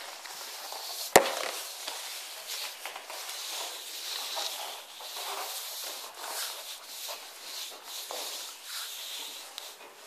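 A bichon frise and a Jack Russell terrier walking on a tiled floor, their claws clicking and scuffling irregularly. One sharp, loud knock about a second in.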